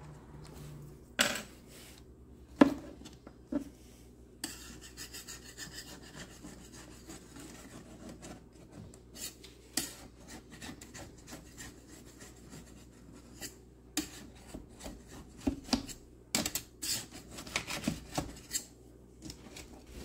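Knife and metal spatula blades scraping around the inside of a stainless-steel cake ring to loosen a chilled cake from it, with scattered sharp clicks and taps of metal on metal, the loudest two in the first few seconds.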